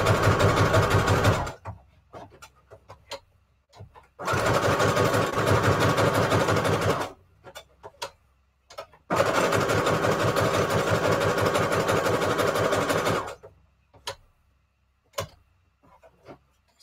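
Electric sewing machine stitching through paper in three runs, the longest about four seconds, stopping and starting. Between runs there are only light clicks and rustles as the paper is repositioned.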